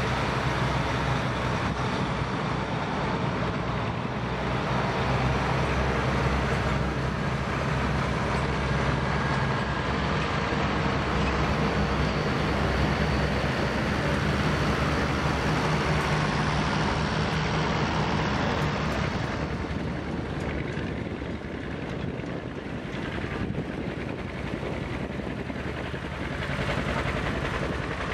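Farm tractor engines running steadily as one tractor after another drives past at a slow parade pace. First comes a big Case 4490 four-wheel-drive tractor, then a John Deere, then red International Harvester tractors. The drone dips a little about two-thirds of the way through and swells again near the end as the next tractors come close.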